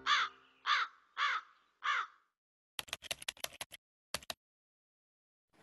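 A crow cawing four times, about half a second apart, each call rising and falling in pitch. Then a quick run of sharp clicks like typing, followed by a couple more clicks.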